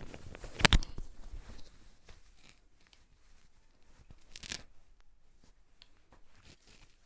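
Nylon straps and plastic buckles of a chest-mount camera harness being handled and adjusted on the body, with rustling and rasping of the webbing. A loud sharp click comes about a second in, and a brief scraping rasp comes about four and a half seconds in.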